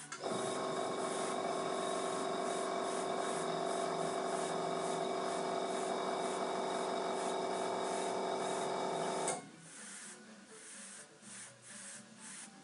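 Airbrush air compressor running steadily with a motor hum, then shutting off abruptly about nine seconds in.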